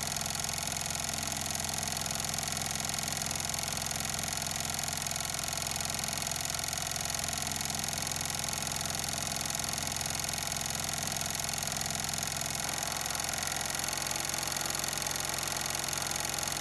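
Wilcox and Gibbs straw braid chainstitch sewing machine running steadily at speed, stitching fine 3.5 mm straw braid into a hat crown.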